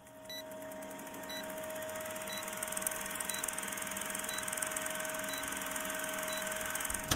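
Old film-projector sound effect under a film-leader countdown: a steady whirring hum with rapid fine clatter and hiss, and a short faint beep once a second. It cuts off abruptly at the end.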